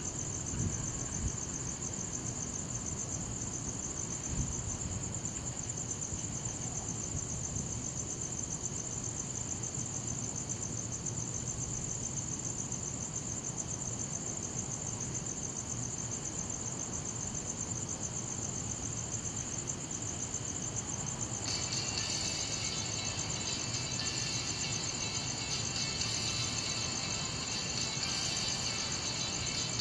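Crickets trilling steadily in a high, continuous chorus over a low rumble of outdoor background noise. About twenty seconds in, a second, lower layer of steady sound joins the trilling.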